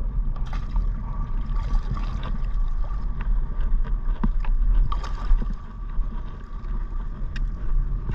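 Wind buffeting the action-camera microphone in a steady low rumble, with water sloshing and splashing as swim fins are pulled onto the feet in shallow sea water, and scattered small clicks.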